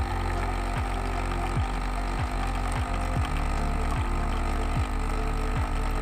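Nescafé Dolce Gusto capsule coffee machine brewing into a mug: its pump runs with a steady buzzing hum and a low throbbing swoop that repeats a little more than once a second.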